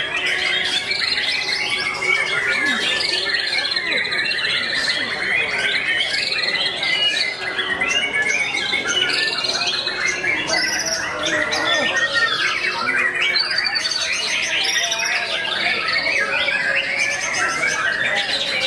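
White-rumped shamas (murai batu) singing at once, a dense, unbroken chorus of overlapping whistles, chattering and rapid trills from several birds.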